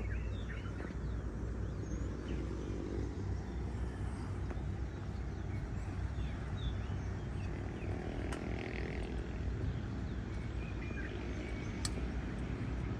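Outdoor ambience: a steady low rumble with scattered short bird chirps.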